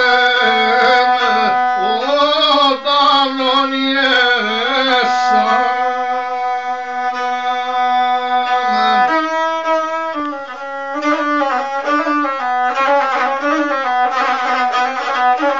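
Gusle, the single-string bowed Serbian folk fiddle, playing an instrumental passage: an ornamented, wavering melody with a long held note in the middle.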